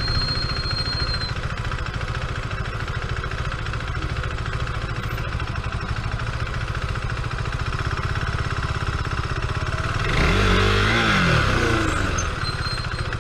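Steady running noise of a car driving slowly in traffic. About ten seconds in, a motorcycle engine close behind revs up and drops back over about two seconds.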